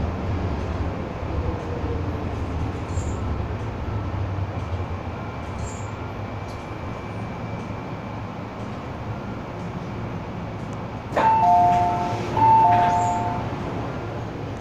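MTR M-Train carriage running between stations with a steady rumble. About eleven seconds in, an electronic two-note chime, high then low, sounds twice in quick succession.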